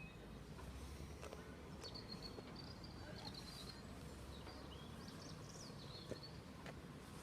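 Birds chirping faintly in short twittering calls over a steady low background rumble, with a few soft clicks.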